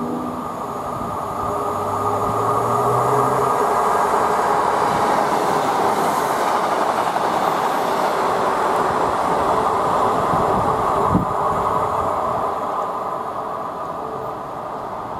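Northern Class 150 Sprinter diesel multiple unit passing: its diesel engine and wheels on the rails grow louder as it approaches, peak as it goes by, then ease off. A single sharp knock about three quarters of the way through.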